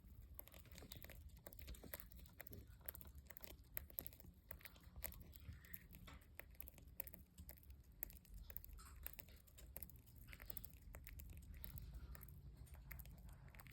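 Small pet parrots chewing and cracking at food, making many faint, dry little clicks and crunches scattered irregularly over a low hum.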